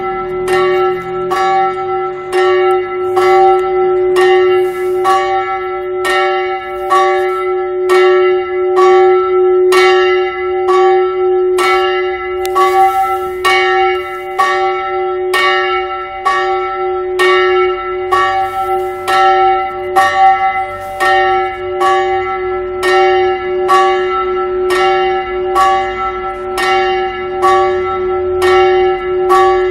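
Small 230 kg church bell, St. Błażej, rung before a service. It strikes evenly, a little over once a second, and each stroke rings on into the next over a steady hum.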